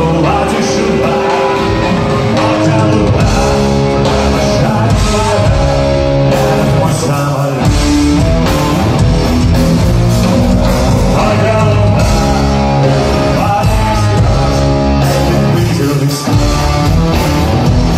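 Rock band playing live on electric guitars, bass guitar and drums, heard from among the audience.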